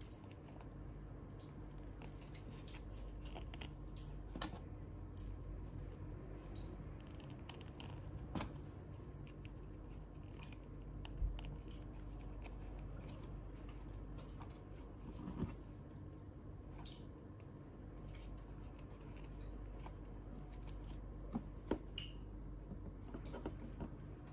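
Small plastic toy pieces clicking and tapping as they are handled and snapped onto a doll-sized pet figure: scattered sharp clicks every few seconds, two close together near the end, over a low steady hum.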